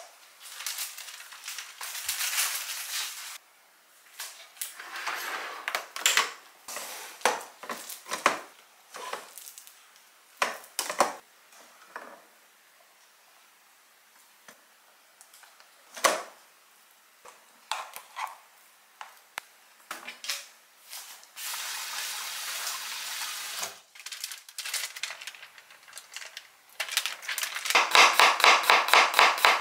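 Kitchen handling sounds: scattered clinks, clatter and stretches of hiss as food is taken from a refrigerator and rice is scooped from a rice cooker. Near the end a kitchen knife starts chopping garlic cloves on a thin cutting board in fast, even cuts, about five a second, louder than everything before.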